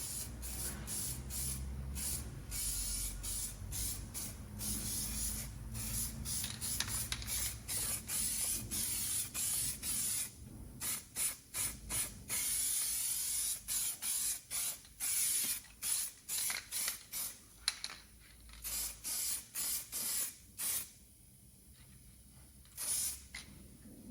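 Aerosol can of primer spraying a coat onto a car body panel, in repeated hissing bursts. The passes are longer and nearly continuous at first, then become many short squirts of about a second each, with a last one near the end.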